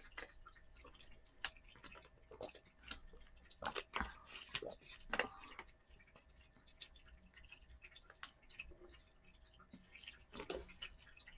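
Faint clicks and crackles of a plastic water bottle being opened and handled while someone drinks from it, with scattered mouth sounds of sipping and swallowing.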